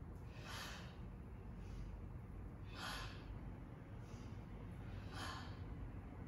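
A woman's breathing in time with a leg-lift exercise: three strong, hissing breaths about two and a half seconds apart, with fainter breaths between, over a faint steady low hum.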